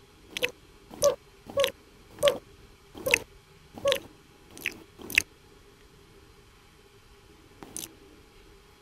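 Cartoon slurping sound effects: about eight quick wet licks in the first five seconds, then one more near the end.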